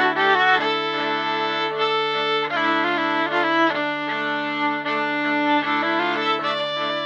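Viola bowed live through a looper: several sustained, layered string lines play over a steady low drone, with the top melody moving from note to note.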